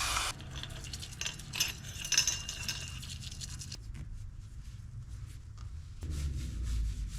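Small brush scrubbing a greasy fishing-reel part clean with degreaser, a run of quick scratchy strokes that stops after about three and a half seconds. A short hiss cuts off right at the start, and it is quiet apart from a low hum after the scrubbing.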